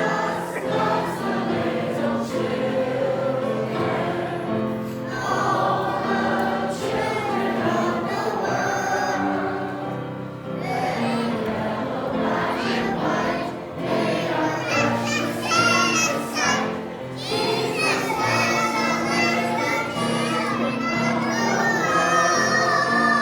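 A choir singing with held, wavering notes over steady low accompanying notes.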